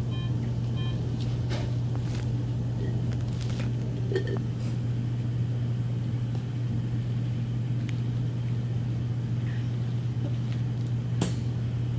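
Steady low hum with a few faint clicks and taps scattered through it, and two short beeps near the start.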